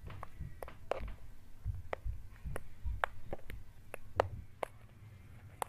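Slime being poked and pressed by fingers, giving irregular sharp clicks and pops over soft low squelches.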